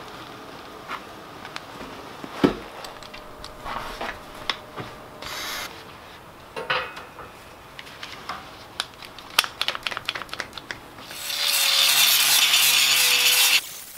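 Steel parts of a square-tube rack clanking and knocking as they are handled, with one sharp bang a couple of seconds in. Then, about eleven seconds in, an angle grinder grinds steel for a couple of seconds and stops suddenly.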